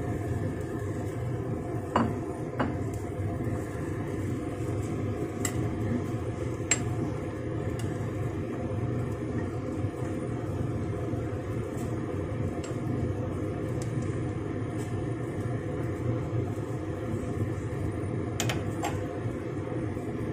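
Pork rib soup at a steady boil in a stainless steel pot, a continuous low bubbling rumble. A metal spoon clinks against the pot a few times, twice close together about two seconds in, twice more a few seconds later, and again near the end.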